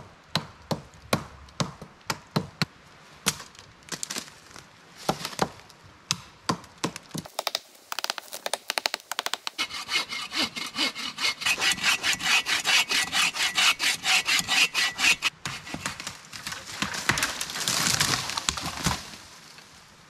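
Dead branches being cut off a leaning dead tree: first a string of sharp woody knocks about once a second, then a hand saw cutting wood in fast back-and-forth strokes for about ten seconds, stopping suddenly near the end.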